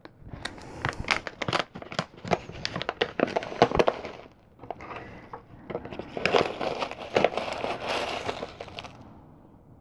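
Crinkling and rustling of a packet of loose-leaf tea being opened and handled, full of sharp crackles for the first four seconds, then softer rustling after a short pause that dies away near the end.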